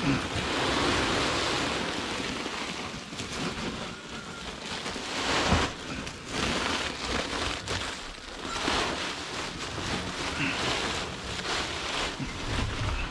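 Woven plastic feed sacks and bags rustling and scraping as they are handled, with a knock about five and a half seconds in.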